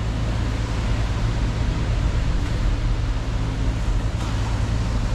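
Steady rushing background noise with a low hum underneath and no distinct events.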